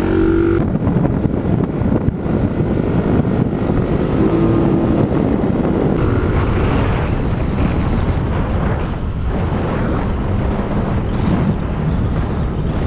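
Steady wind rumble and vehicle running noise on a GoPro camera's microphone while on the move. About halfway through, the sound abruptly turns duller.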